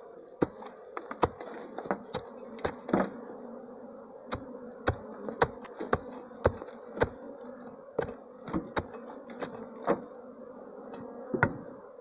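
A honeybee swarm buzzing steadily, disturbed in its nest inside a hard earthen termite mound, with sharp knocks roughly once or twice a second as a hatchet chops the mound open.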